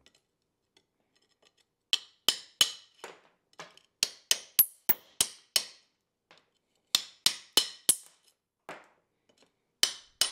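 Hammer striking a steel chisel to chip old plaster parging off a brick chimney: sharp metallic blows in quick runs of several strikes with short pauses between them.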